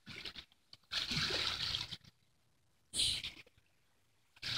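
Water splashing and sloshing in three short bursts, the longest lasting about a second, with quiet gaps between.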